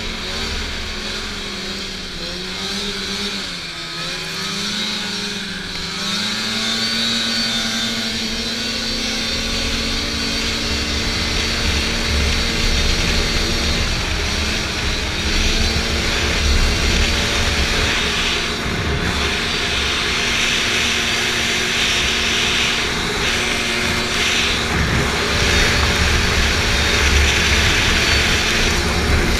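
Snowmobile engine running as the sled crosses a snowy field. Its pitch dips a few seconds in, climbs back and then holds steady, with a low rumble that grows louder through the rest of the ride.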